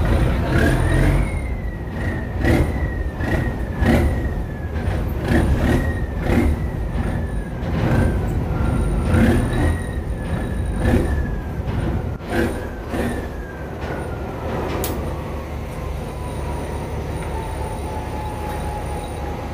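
A boat's engine being throttled up and back again and again, its whine jumping up in pitch and sinking back about a dozen times, each rise starting with a knock, then winding slowly down over the last several seconds over a steady low rumble.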